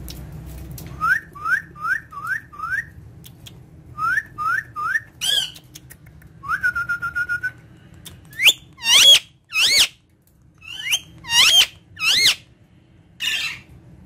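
Ringneck parakeet whistling: a quick series of short rising chirps, a held fluttering note, then a string of louder rising screeches, the loudest about two-thirds of the way in.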